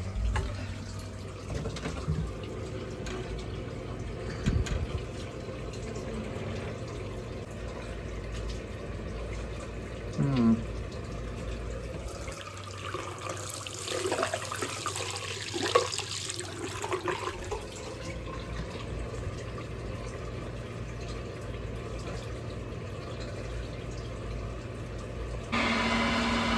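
Water running from a tap into a sink over a steady low hum, with a few light knocks. Near the end a louder steady hum sets in.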